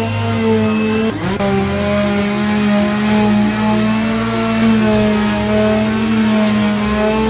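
Electric orbital sheet sander running steadily as it sands body filler on a car panel, a continuous motor whine whose pitch dips briefly about a second in and then recovers.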